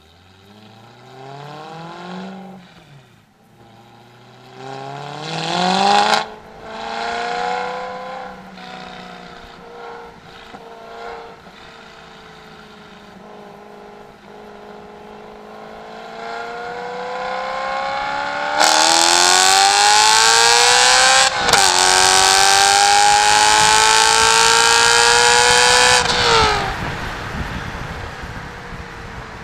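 BMW M3 engine and exhaust accelerating through the gears, the revs climbing and dropping back at each upshift, then running steadily at part throttle. Later comes a very loud full-throttle pull: the revs climb hard, dip at one upshift and climb again, then the throttle is lifted and the note falls away.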